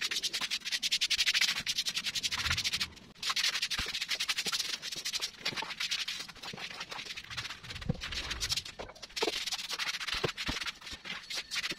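A broom sweeping a floor: quick, repeated scratchy strokes of the bristles, with a short pause about three seconds in.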